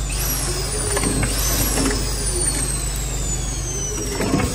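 Blister packing machine running: a steady low hum with light clicks and knocks from its mechanism, a louder knock near the end, and a high whine that slides slowly down in pitch and starts over twice.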